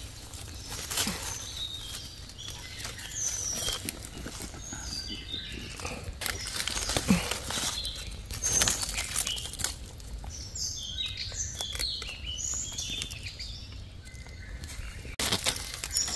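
Dry leaf litter rustling and crackling as gloved hands dig a mushroom out of the soil with a small knife. Birds chirp in the background, most busily about two-thirds through.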